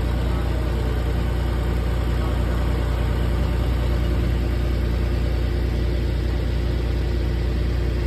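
Large farm loader's engine running steadily, a low even hum with no change in pace.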